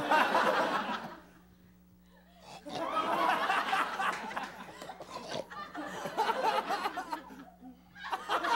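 Audience laughing at a stand-up joke: a burst of laughter at the start that fades within about a second, then a longer wave of laughter from about three seconds in.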